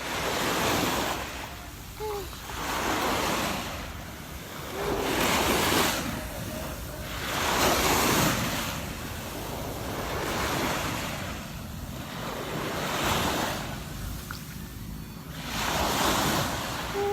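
Sea waves washing onto a beach, the surf noise swelling and fading every two to three seconds, with wind buffeting the microphone.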